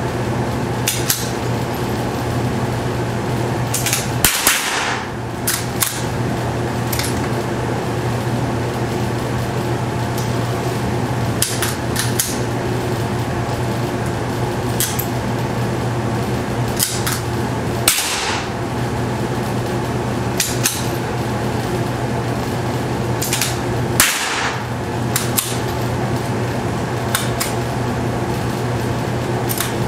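Sharp .22 LR rifle shots in an indoor range, over a steady ventilation hum. Three louder cracks with a short echo come about four, eighteen and twenty-four seconds in, and many fainter cracks fall between them.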